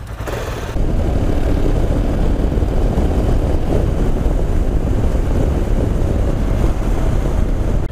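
Royal Enfield Himalayan motorcycle pulling away and riding, its engine buried in a loud, rough wind rumble on the helmet microphone that jumps up about a second in and then holds steady.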